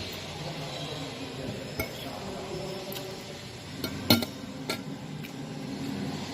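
Tableware clinking during a meal: a handful of sharp clicks of a utensil or glass against dishes, the loudest about four seconds in, over a steady low background hum.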